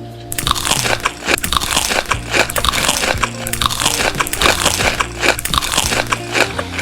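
Crunchy food being bitten and chewed close to the microphone: many quick, loud crunches starting about a third of a second in, with background music underneath.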